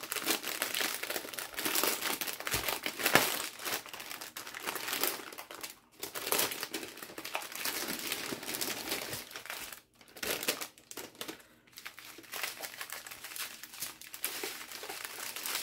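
Crinkling and rustling of a clear plastic bag and the strips of small plastic packets of diamond painting drills as they are handled and pulled out. The crackle is irregular, with a few brief pauses.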